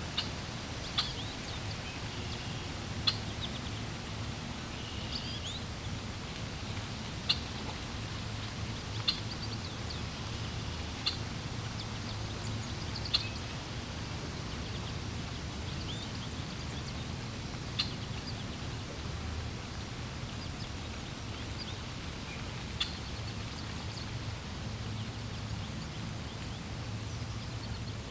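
Steady flowing water with birds chirping over it: short, high, sharp chirps every second or two, thinning out in the second half.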